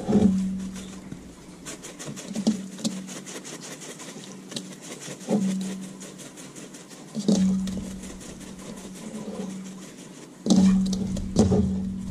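Seasoning shaken from a shaker bottle over raw fish fillets in a plastic bowl: a stretch of quick rattling shakes, with a few knocks as the bottle and fillets are handled. A steady low hum runs underneath.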